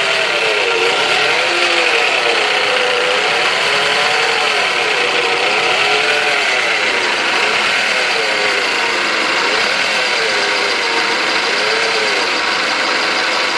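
Running engine making an odd wheezy, whirring tone that rises and falls in pitch every second or two, like wind groaning through trees, over a steady hiss. The cause of the noise is unknown.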